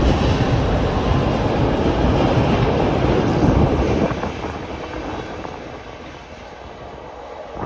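Container freight train's wagons rolling past on the track, wheels rumbling over the rails, the noise dropping away after about four seconds as the end of the train passes and recedes.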